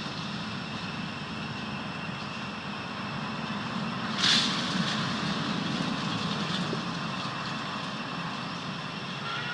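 Steady background hum with a low rumble and a few constant high-pitched tones. A brief, loud hissing burst comes about four seconds in.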